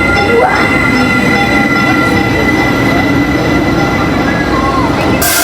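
TEXrail Stadler FLIRT commuter train braking as it pulls in. The brakes squeal in several steady high tones over the rumble of the wheels. Near the end a loud hiss starts suddenly.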